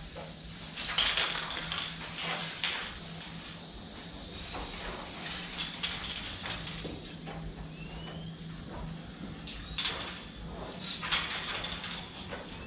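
Aerosol spray paint cans hissing as paint goes onto the wall: one long continuous spray, then, after about seven seconds, a few short bursts.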